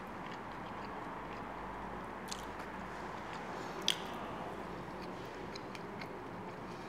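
A person eating with wooden chopsticks: quiet chewing and biting of food, with a few sharp clicks, the loudest about four seconds in.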